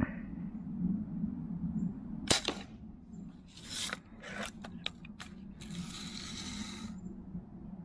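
Daisy Red Ryder lever-action BB gun fired once, a sharp snap about two seconds in. The lever is then worked to cock the spring for the next shot: a short rasp, a quick run of clicks, then a longer rasping stretch.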